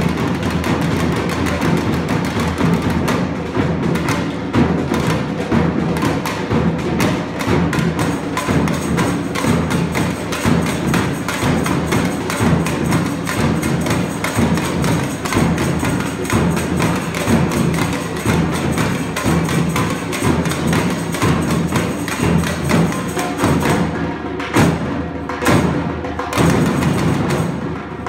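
A samba batucada percussion ensemble playing a dense, driving rhythm on metal-shelled samba drums and hand percussion. The higher parts drop out about four seconds before the end.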